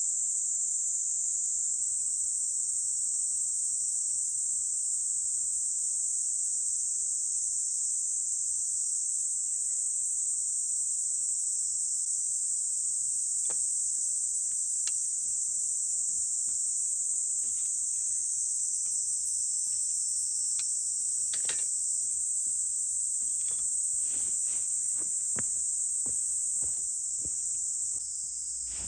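A steady, high-pitched drone of summer insects. Scattered sharp clicks and snaps come in over the second half.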